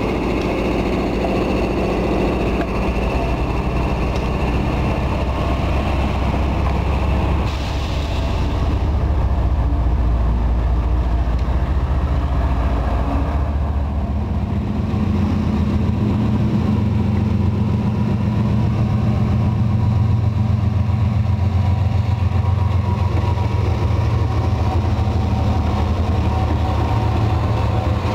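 Diesel-electric freight locomotives running past at close range, a loud, steady, deep engine drone. The sound changes abruptly about seven seconds in, and a new, deeper engine note comes in around fourteen seconds as another locomotive draws near.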